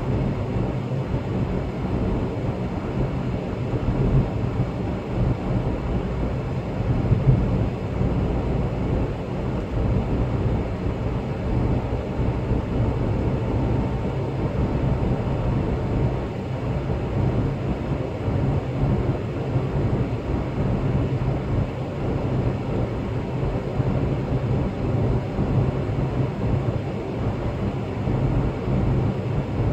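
Steady engine and tyre noise of a car driving along an expressway.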